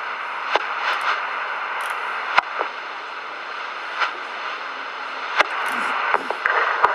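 Radio scanner speaker hissing as a two-way channel opens abruptly: steady static with scattered clicks and pops, and a brief warbling trace near the end, without clear speech.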